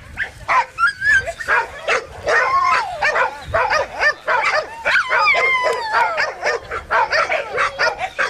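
Many dogs barking at once in quick, overlapping calls, with high, wavering yelps among them.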